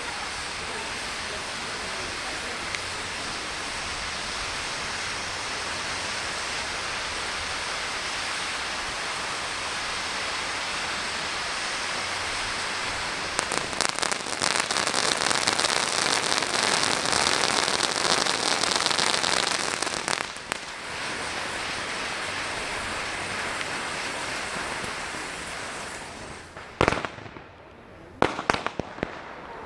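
Fireworks display: a steady rain-like hiss, then several seconds of dense crackling about halfway through, then hissing again. Near the end, a run of sharp separate bangs.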